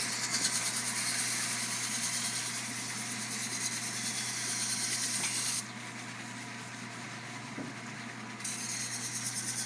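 Knife blade ground on a motor-driven sharpening wheel: a hissing grind with a fast pulsing flutter over a steady motor hum. It eases off for about three seconds midway, then starts up again.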